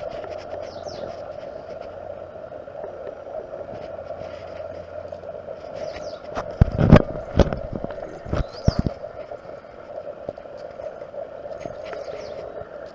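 Outdoor garden ambience: a steady hum with small birds chirping now and then. A cluster of sharp knocks and scrapes comes about seven to nine seconds in, the loudest sounds in the stretch.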